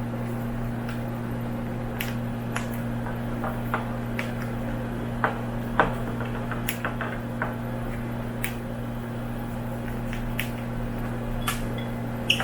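Cockatiels husking millet seeds with their beaks: small sharp clicks and cracks at irregular intervals, a few every second or two, over a steady low hum.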